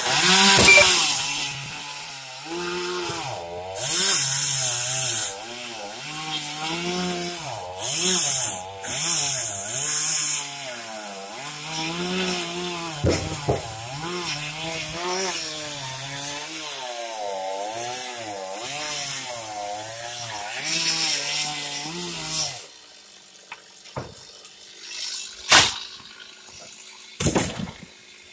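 Chainsaw running and cutting wood, its engine pitch rising and falling with the throttle, with louder bursts of harsh cutting noise. The saw stops about 22 seconds in, and a few sharp knocks follow.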